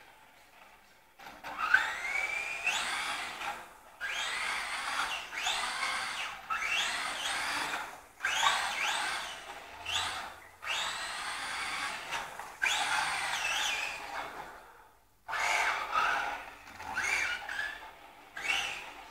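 The brushless electric motor of a Reely Firestar 1/10 2WD RC car whines in repeated throttle bursts as the car is driven in drifts. Each burst is a rising whine that cuts off. The bursts begin about a second in.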